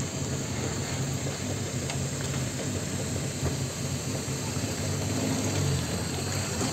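Vehicle engine running steadily at low speed, a low even hum, with faint knocks and rattles, heard from inside a pickup crawling along a rough mud road.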